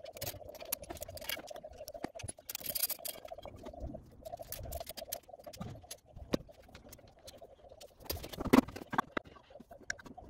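Hand tools and loose metal parts clicking, knocking and scraping as the footpeg bracket and side-cover fittings of a Honda CB250 Nighthawk engine are undone, with a sharper knock about eight seconds in. A steady faint hum runs underneath.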